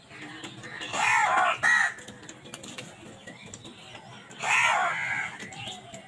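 House crows cawing while feeding in a flock: two harsh caws close together about a second in, then one longer caw at about four and a half seconds.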